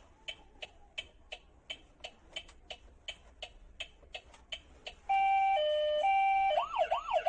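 Electronic toy steering wheel ticking steadily, about three ticks a second. About five seconds in, its small speaker switches to a two-tone siren alternating between a high and a low note, then a fast wailing siren near the end.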